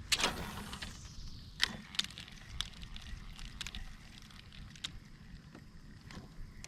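Kayak-fishing gear: a sharp swish right at the start that trails off in a falling hiss, then scattered clicks and knocks. Underneath runs a low steady rumble of wind and water.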